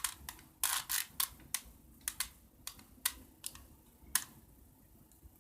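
Plastic Rubik's cube being turned by hand: about ten quick clacks of the faces being twisted over four seconds, then the turning stops.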